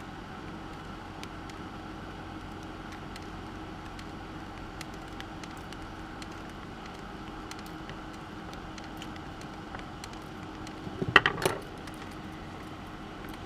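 Side cutters snipping the excess component leads off the back of a circuit board: small sharp clicks scattered over a steady low hum. A louder, brief metallic clatter comes about eleven seconds in.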